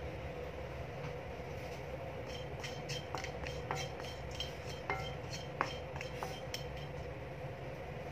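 Wooden spatula stirring dry cinnamon sticks in a nonstick kadai: a run of light clicks and taps as the sticks knock on the pan, some with a brief metallic ring, over a steady background hum.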